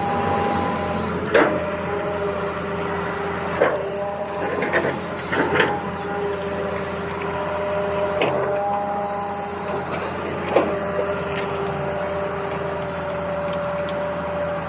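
Small electric motor of a battery-powered toy vehicle whirring steadily, with about six sharp clicks scattered through it.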